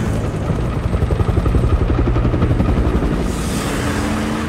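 Ambulance engine running hard as it drives through standing water, with a rumble of fast pulsing helicopter rotor chop; a hiss of spray swells up about three seconds in.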